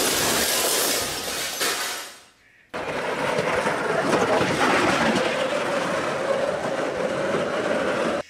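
A loud crashing noise dies away over the first two seconds. Then a bobsled is pushed onto a dry summer push-start track and rolls along its rails, making a steady rolling, rail-like noise with a faint held tone.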